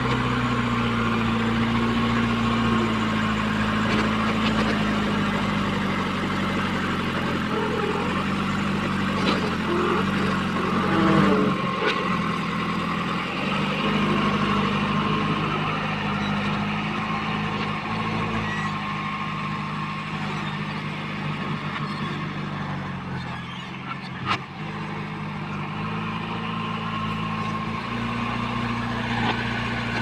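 JCB 3DX backhoe loader's diesel engine running under load as the front loader works soil; the engine note sags and picks up again several times, with a thin steady whine above it.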